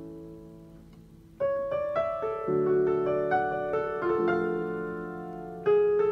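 Digital piano playing a slow ballad: a held chord fades out, then about a second and a half in a melody starts over chords that change every second or two.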